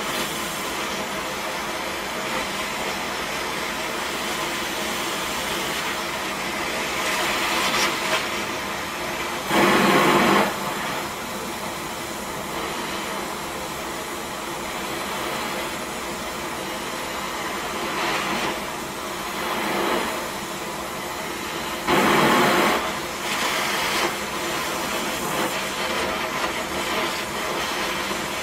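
Oxy-acetylene torch flame hissing steadily as it heats a small piece of metal to a glow for forging. It surges louder for about a second twice, about a third of the way in and again about three-quarters through.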